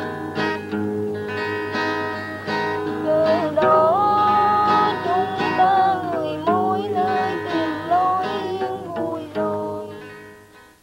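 Background music: plucked strings under a melody line that bends and glides in pitch, fading out near the end.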